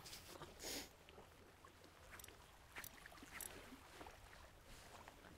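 Near silence: faint background hiss with a few soft clicks or rustles, the loudest a little under a second in and two more near the middle.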